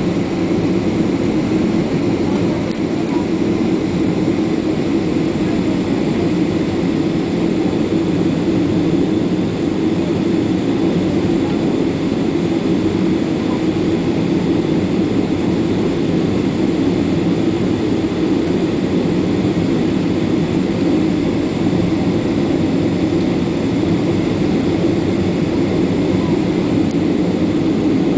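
Steady cabin noise inside a taxiing Boeing 767-300: the twin jet engines at low taxi power, heard through the fuselage as an even, unchanging drone with most of its weight low down.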